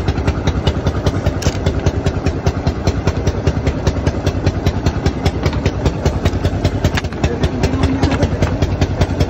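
A small engine idling steadily, its exhaust pulsing at about six to seven beats a second.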